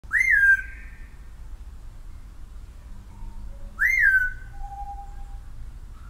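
Male eclectus parrot giving two loud whistles about four seconds apart, each sweeping up and then sliding down, with a fainter, steady lower note after the second.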